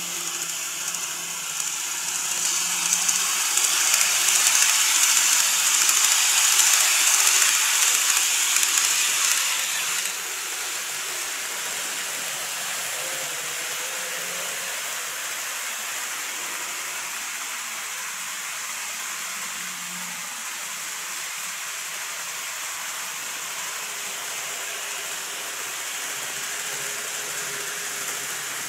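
Model electric trains running on the layout track: a steady rushing hiss of wheels and motors. It swells for the first several seconds, then drops sharply about ten seconds in and runs on evenly.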